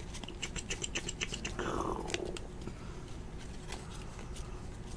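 A stack of basketball trading cards being flipped through by hand: a quick run of soft clicks and flicks as the card edges slide off one another, thinning out after about two seconds.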